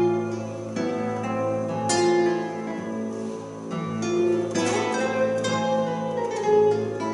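Live acoustic music from two classical guitars and a double bass: slow plucked guitar notes ringing over sustained low bass tones.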